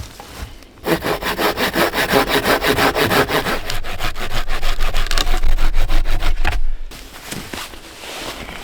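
Small hand saw cutting through a dry log in rapid, even back-and-forth strokes. It starts about a second in and stops about two seconds before the end, leaving quieter scraping and handling sounds.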